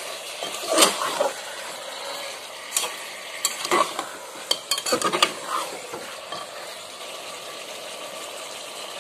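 A metal spoon scraping and clinking against the sides of a pressure cooker pot as chicken pieces are turned through masala, in irregular strokes bunched in the first half, over a steady sizzle.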